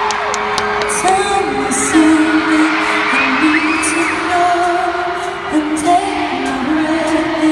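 Live concert music over an arena sound system, heard from the audience: a stepping melody over a long held note, with fans screaming over it.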